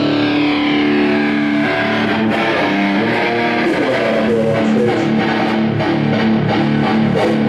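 Electric guitar played through an amplifier for a sound check, with loud held chords and notes that change every second or so.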